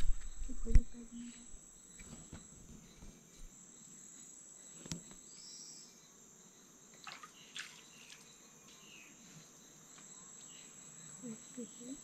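Steady high-pitched insect chorus of crickets, with a few sharp knocks and clicks, the loudest about a second in and others near the middle.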